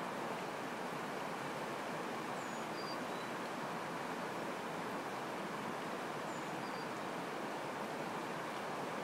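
Shallow river running over rocks in a riffle, a steady rushing of water. A bird chirps faintly twice, a few quick high notes falling in pitch.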